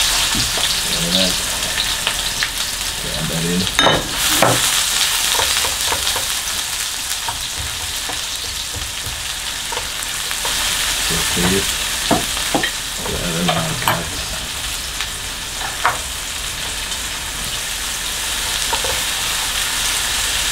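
Sliced onions and carrots sizzling in hot oil in a nonstick frying pan, stirred with a spatula. Scattered scrapes and knocks of the spatula against the pan sound over the steady sizzle, with a cluster of louder knocks about four seconds in.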